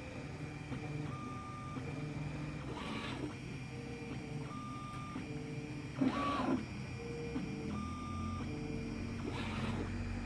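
Tronxy 3D printer's stepper motors whining in short steady tones that start and stop as the head moves between points during nine-point auto bed levelling. A short, noisier burst comes about every three seconds.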